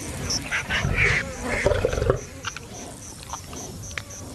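Lioness growling at a kill, loudest in the first two seconds and then quieter with scattered clicks. A faint high chirp repeats steadily about three times a second behind it.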